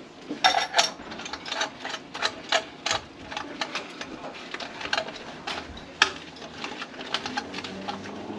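A run of irregular light clicks and knocks, a few a second, over a faint hiss.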